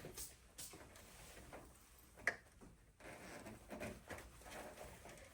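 Faint handling rustle and small clicks of wire connectors being pushed onto the terminals of a water heater's control board, with one sharper click a little over two seconds in.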